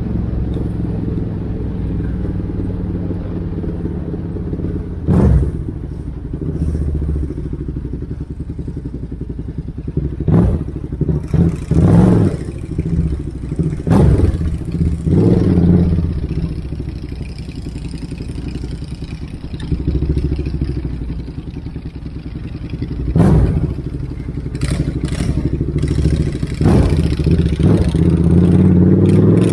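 Motorcycles with loud exhausts running, their engines rumbling steadily, broken by short, sharp bursts every few seconds.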